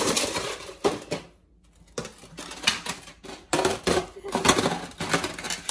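Irregular clicking and clattering of small hard objects being handled, with a quiet gap of about half a second near the middle.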